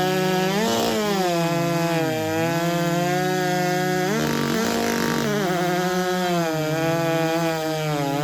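Racing chainsaw of the 90cc-and-under class running flat out in a timed cut through a log. The engine's pitch dips and recovers several times as it loads up in the wood.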